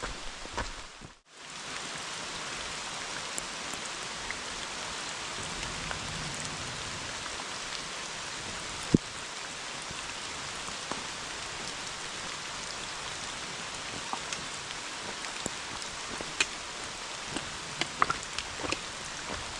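Steady rain falling, an even hiss with scattered drops ticking close by, more of them near the end. One sharp tap about nine seconds in.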